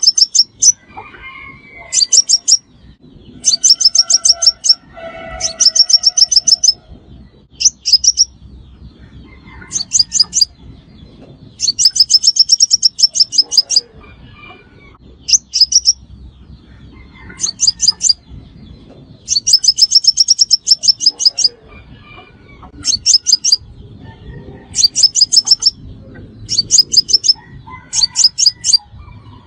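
Crimson sunbird song: short, high, rapid trills of sharp repeated notes, one every second or two, used as a trapping lure call.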